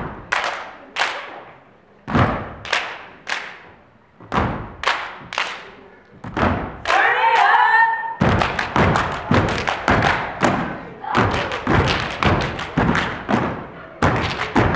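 Step team stepping in unison on a wooden stage: boot stomps and hand claps. Short groups of sharp strikes come with pauses between them, a chanted voice breaks in about six to seven seconds in, and from about eight seconds a fast, unbroken stepping rhythm takes over.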